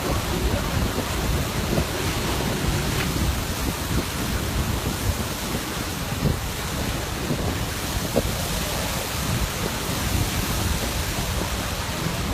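Steady rushing rumble of a volcanic eruption, with wind buffeting the microphone.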